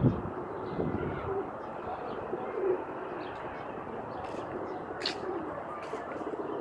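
Doves cooing: a series of short, low coos, with a few sharp clicks in the second half.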